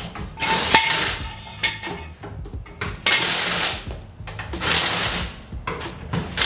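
Steel hand tools clanking and clattering, with several harsh bursts of noise about a second long each.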